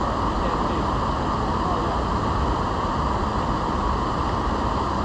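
River water rushing steadily, a continuous even roar of current.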